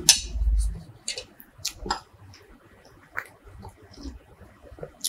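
A fork clinking and scraping on a plate while cutting a piece of chocolate dessert: a sharp clink at the very start, a few more short clicks over the next two seconds, then quieter scattered taps and handling sounds.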